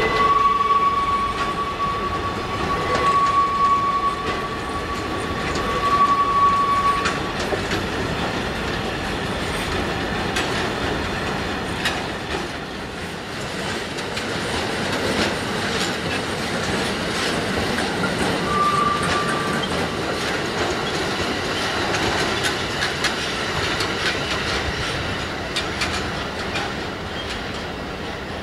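Freight train of enclosed car-transporter wagons rolling past, its wheels clicking over the rail joints. A steady high squeal sounds for the first seven seconds or so and again briefly past the middle, and the noise eases near the end as the last wagons go by.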